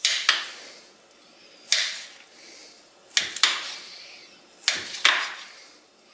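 Chef's knife chopping ham on a glass cutting board: sharp clacks of the blade striking the glass, in four bursts of one or two strokes about a second and a half apart.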